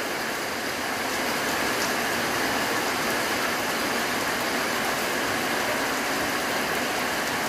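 A light rain shower falling steadily, an even hiss of rain with no breaks or changes.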